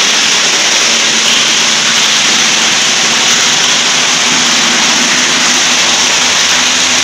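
Water rushing and splashing as it jets out of a 1½-inch float valve into a concrete tank, a loud steady rush. The ball float hangs low, so the valve is open and the tank is filling.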